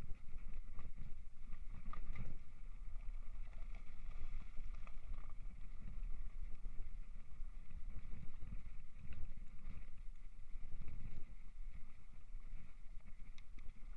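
Mountain bike rolling fast over a rough grass and dirt trail, picked up by a handlebar-mounted camera: a steady low rumble of tyres and frame with occasional knocks and rattles over bumps.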